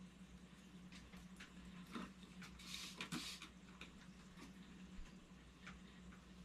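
Faint, soft rustles and light ticks of a cloth being folded in the hands and then rubbed over a philodendron leaf, with a brief rubbing hiss about three seconds in, over a low steady hum.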